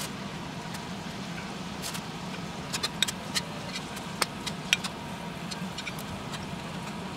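Snow peas and other vegetables frying in a stainless steel pan: sizzling with scattered crackling pops and a few sharp clicks over a steady low hum.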